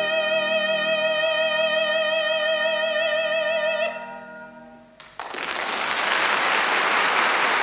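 An operatic soprano holds a long sung note with wide vibrato over a sustained accompanying chord. The note cuts off a little under four seconds in and the chord dies away. About five seconds in, an audience bursts into applause that carries on.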